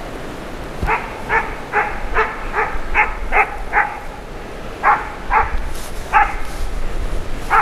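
A hunting dog barking steadily, about a dozen short barks: a quick run of eight, then a pause and four more, spaced further apart. This is a driving hound giving tongue as it works game toward the standing hunters.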